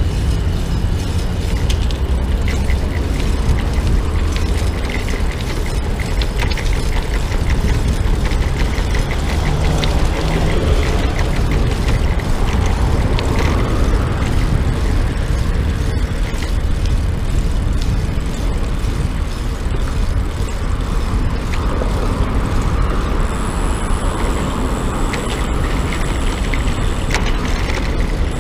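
Steady wind rumble on the microphone of a GoPro action camera on a moving bicycle, with cars and a bus passing on the road alongside.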